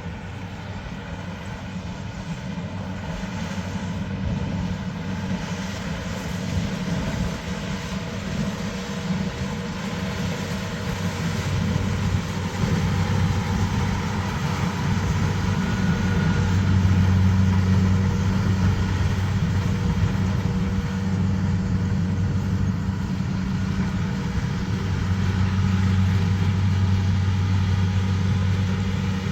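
A heavy engine running with a steady low hum. It grows louder over the first dozen seconds or so, then holds steady.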